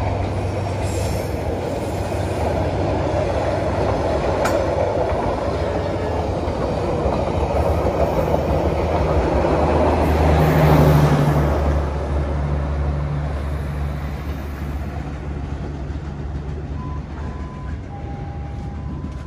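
Passenger train's coaches rolling past on the rails, a continuous rumble with a low hum. It swells to its loudest about ten to eleven seconds in, then fades as the train moves away.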